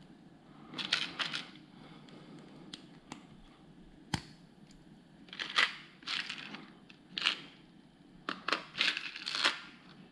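Plastic LEGO Technic pieces clicking and rustling as they are handled and pressed together, in several short bursts, with one sharp click about four seconds in.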